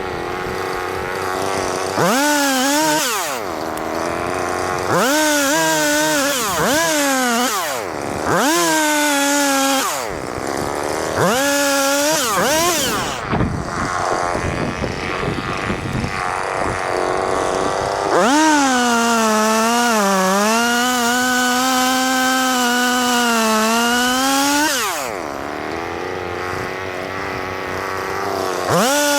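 Two-stroke chainsaw revving up and dropping back in several short bursts, then held high for about six seconds with its pitch wavering slightly, before dropping and revving again near the end.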